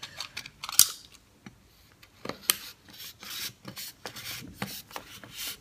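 Craft knife blade cutting through glued polystyrene foam balls in a series of short scraping strokes, starting about two seconds in. A sharp tap just under a second in is the loudest moment.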